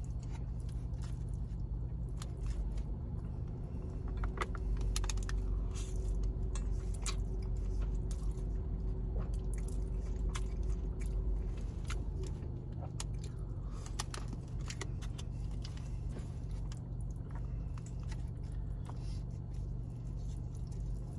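Close mouth sounds of a man eating spaghetti: chewing, sucking in noodles and small wet clicks and smacks, scattered through the whole stretch over a steady low rumble.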